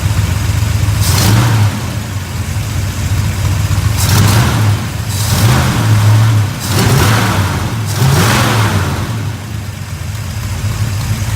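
Truck's 390 V8 running on a freshly fitted Holley 4160 four-barrel carburetor, idling with about five quick throttle blips, each rising in pitch with a rush of intake noise and dropping back to idle. The throttle is being worked to check for an off-idle hesitation.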